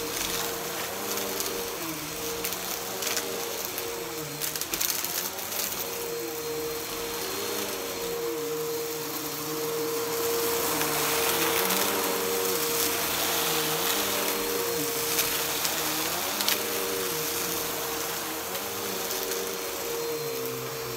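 Bissell PowerForce upright vacuum cleaner running on shag carpet with a steady motor whine, its lower pitch dipping and rising with each forward-and-back stroke. A few brief crackles sound around five seconds in.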